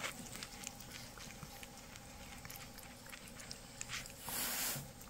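Cat eating wet food from a bowl: faint, irregular lapping and chewing clicks, with a brief soft rush of noise about four seconds in.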